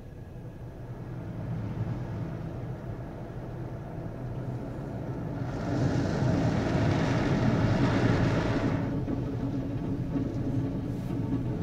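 Automatic car wash heard from inside the car's cabin: a steady low hum, with a louder hiss of spray on the car's body and windshield from about five and a half seconds in to about nine seconds.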